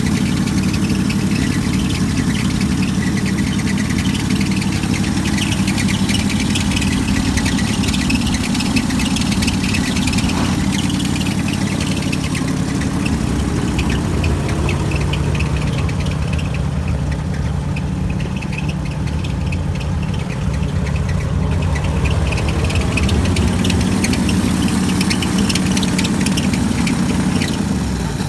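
Carburetted vehicle engine running steadily, with an even low hum. The high end thins out for a few seconds around the middle.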